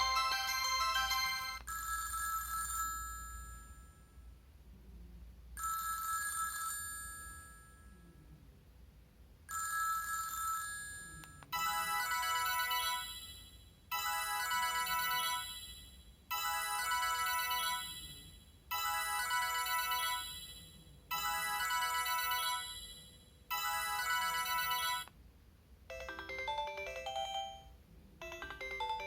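Sony Ericsson J230i ringtones playing one after another. First a chime tone sounds three times about four seconds apart, then a short bright phrase of notes repeats six times, and a different tune starts near the end.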